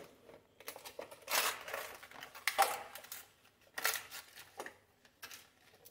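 Fresh banana leaves rustling and crinkling in several short bursts as they are pressed and folded into a steel pan to line it.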